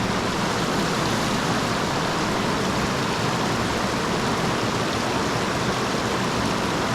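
Steady rush of flowing stream water, unbroken and even in level.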